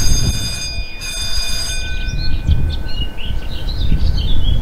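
Train horn sounding a steady high note with a short break about a second in, lasting under two seconds. Then small birds chirping, over a low rumble of wind on the microphone.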